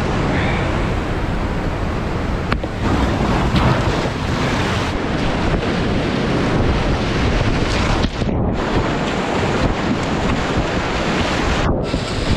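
Loud, steady rush of whitewater rapids heard from a kayak in the middle of them, with wind buffeting the microphone. The sound turns briefly muffled twice, once about two-thirds through and again near the end.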